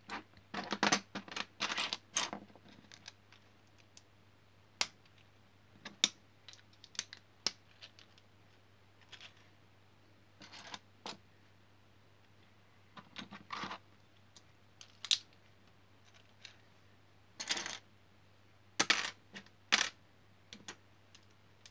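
Wilko Blox plastic building bricks clicking and clattering as they are handled and pressed together, in irregular sharp clicks, some in quick clusters, with short pauses between.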